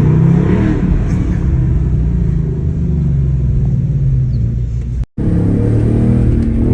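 Ford Mustang GT's 5.0-litre Coyote V8 running with a steady, low exhaust note, broken by a brief gap about five seconds in.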